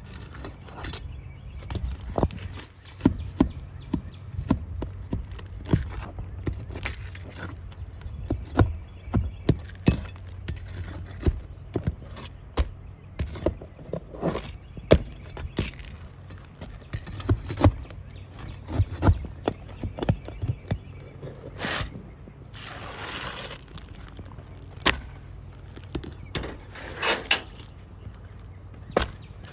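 Irregular sharp knocks, taps and clatter of hand work during a roof repair, with a couple of short scraping or rustling stretches in the last third.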